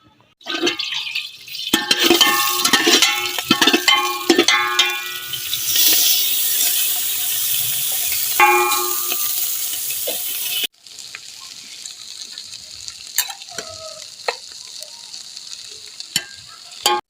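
Food sizzling in hot oil in a metal cooking pot while a metal spoon stirs and clanks against the pot, the clanks ringing. About eleven seconds in the loud stirring stops abruptly, leaving a quieter steady sizzle with a few sharp clicks.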